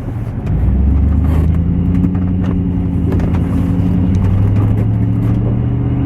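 A motor vehicle's engine running with a steady low hum. It comes up louder about half a second in and then holds even.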